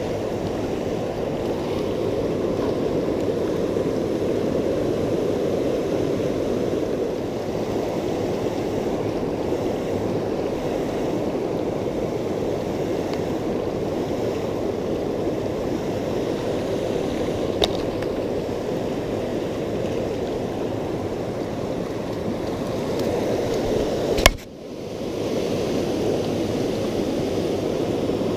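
Steady rushing of fast, broken river water. A faint click comes about 18 seconds in, and a sharp knock about 24 seconds in, after which the rushing drops away for a moment before coming back.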